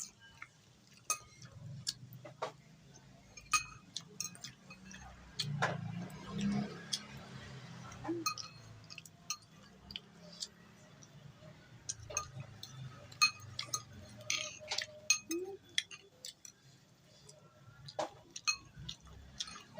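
Spoon clinking and scraping against a bowl in scattered, irregular taps while bakso meatball soup with rice is eaten, with soft eating sounds between the taps and a low hum underneath.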